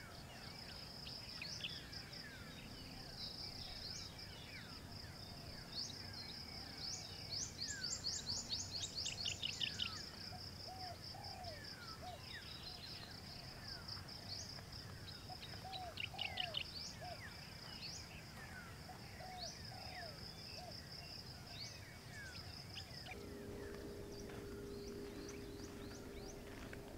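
Rural dusk ambience: a steady high insect drone with many birds chirping and calling, including a rapid trill about eight seconds in. A steady low hum comes in a few seconds before the end.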